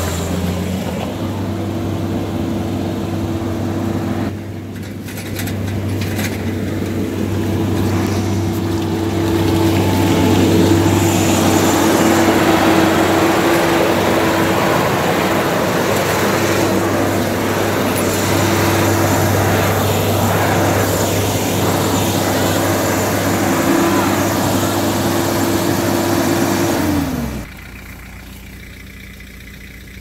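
New Holland LS170 skid steer's diesel engine running steadily at working revs while hauling a round bale, a constant engine drone with a grinding, noisy layer over it. About 27 seconds in, the engine sound cuts off abruptly and a quieter, lower steady hum is left.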